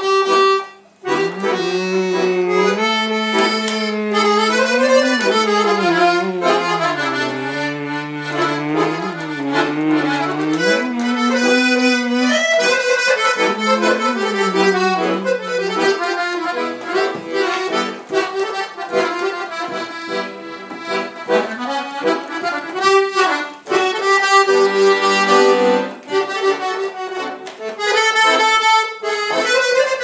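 Piano accordion playing a Balkan kuchek (čoček) tune: an ornamented melody over a moving bass line, with a brief drop about a second in.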